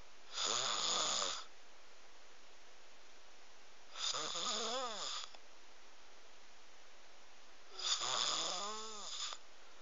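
Snoring: three drawn-out snores about four seconds apart, each lasting a little over a second, with a pitch that rises and then falls within each snore.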